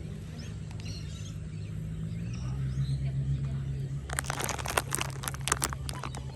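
Birds chirping outdoors over a steady low rumble, with a quick run of sharp clicks about four seconds in.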